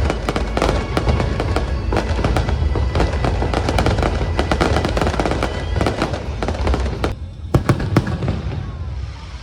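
Fireworks going off in rapid, dense crackles and bangs, thinning out near the end, with show music playing underneath.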